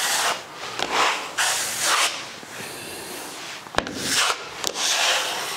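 Broad steel taping knife scraping joint finisher across a plasterboard wall in a series of spreading strokes, with a single sharp click about two-thirds of the way through.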